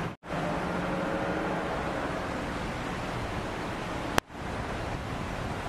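Steady street noise with the low hum of idling vehicle engines. The sound cuts out briefly just after the start, and again about four seconds in, right after a sharp click.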